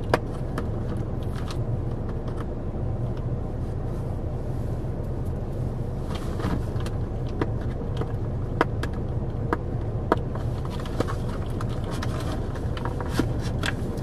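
Irregular clicks and ticks of a cardboard cookie box and its wrapping being handled and pried open, a struggle to get into the packaging, over a steady low hum of the car cabin.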